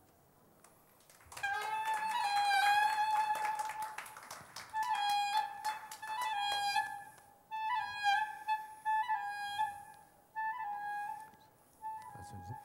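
Klezmer music: a single lead melody line begins after about a second and a half of quiet. It opens with a long wavering note, then plays short ornamented phrases with bends, separated by brief pauses.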